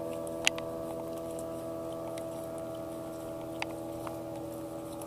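Small boat engine running steadily, a hum of several even tones. Rain falls, and a few sharp clicks come through, the loudest about half a second in.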